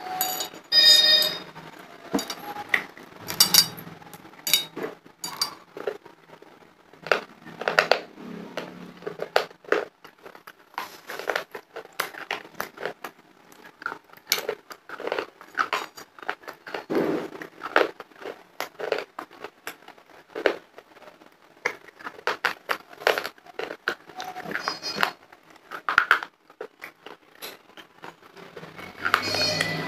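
Close-miked crunching and chewing of hardened homemade clay and chalk lollipop pieces: many irregular sharp crunches and crackles, bite after bite.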